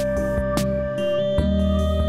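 Instrumental background music: a held lead note that slides up a step about halfway through, over sustained bass notes and light percussive hits.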